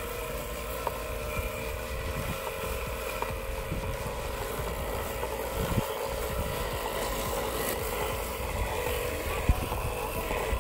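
3D-printed Arduino robot mower's electric motors running with a steady whine as it drives across grass, with wind rumbling on the microphone.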